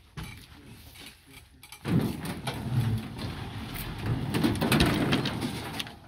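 A heavy section of an old furnace being shoved into the back of a utility truck: about two seconds in, a loud stretch of metal scraping and knocking against the truck bed begins, lasting about four seconds.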